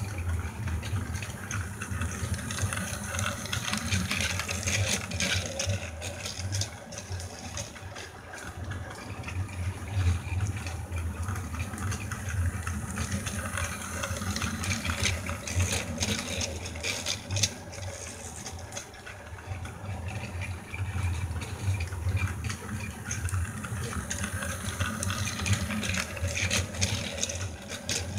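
Toy train running on plastic track: a steady motor whir with the wheels clicking and rattling over the track joints. It grows louder and fades several times as the train comes round the loop.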